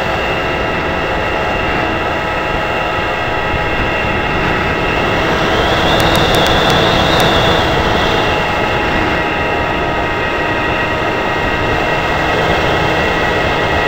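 Onboard sound of a foam RC model plane in flight: a steady motor whine over loud rushing air on the microphone. A higher whine swells and fades about six to seven seconds in, with a few faint clicks.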